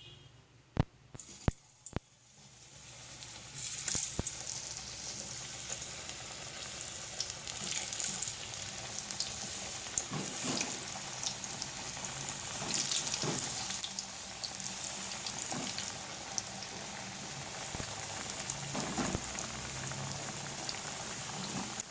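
Sweet potato chunks deep-frying in hot oil for kamote cue: a steady sizzle with crackling pops. It is preceded by a few sharp clicks in the first two seconds and swells to full strength within about two seconds.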